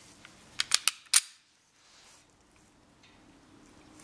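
Sharp metallic clicks from a Taurus G2C 9mm pistol's stock trigger being dry-fired to show its play: a few quick small clicks, then a louder click about a second in.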